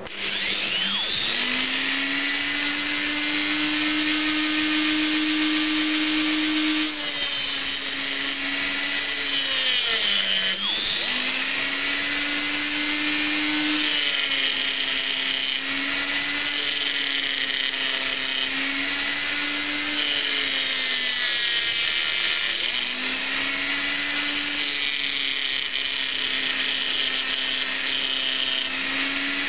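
Sturm rotary tool mounted in a lathe toolpost, its small abrasive wheel grinding the end face of a metal part spinning in the lathe chuck: a steady high motor whine that starts at the opening and dips in pitch a few times, most deeply about ten seconds in.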